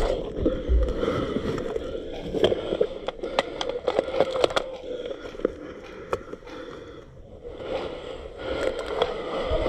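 Crunching and scraping of movement through snow, with a scatter of sharp clicks between about two and five and a half seconds in. It eases off for a moment shortly before the end.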